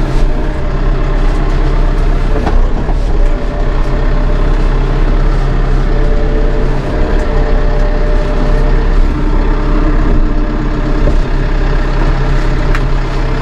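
Massey Ferguson 2850M compact tractor's diesel engine running steadily under way, heard from inside the closed cab, with a faint click or two.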